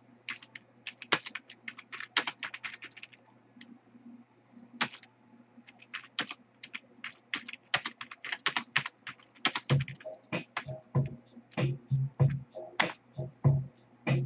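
Typing on a computer keyboard: quick, irregular key clicks in runs. About ten seconds in, music with a low, regular beat comes in under the typing.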